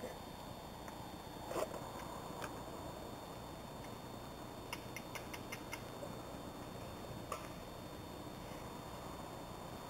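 Quiet steady background hiss with scattered light clicks and knocks: one knock about a second and a half in, then a quick run of about six light ticks around the middle.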